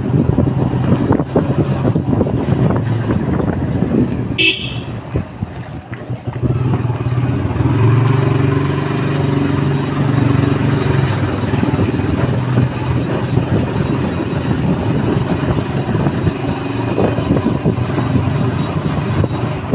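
Motorcycle engine running steadily while riding, with wind noise on the microphone. A short horn toot sounds about four and a half seconds in, and the engine eases off briefly before pulling again.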